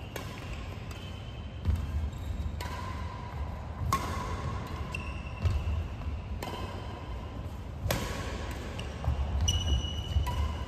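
Badminton shoes on a wooden court floor during shadow footwork: heavy landings and lunges thud every second or two, with short sneaker squeaks, echoing in the hall over a steady low hum.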